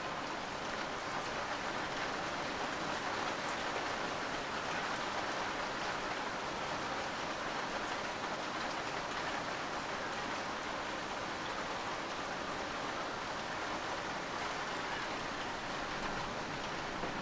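Rain falling steadily in a thunderstorm, an even hiss with no thunder.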